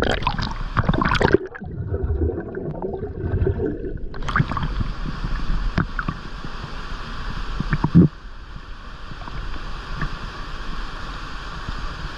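Water splashing and gurgling around a swimmer, then the steady rush of a waterfall, with one sharp splash about eight seconds in.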